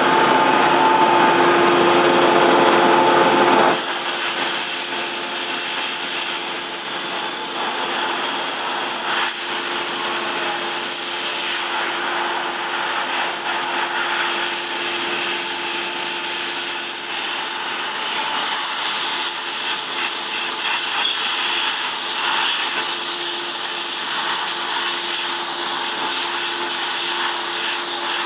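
Toyoda CNC lathe running: a steady machine hum with several held pitched tones, one louder whine cutting off abruptly about four seconds in, after which a quieter hum with a single steady tone continues.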